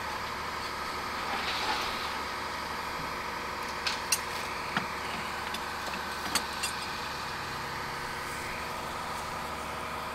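Flatbed tow truck's engine idling steadily. A handful of sharp metallic clinks and knocks come between about four and seven seconds in, as the wrecked car is hooked up.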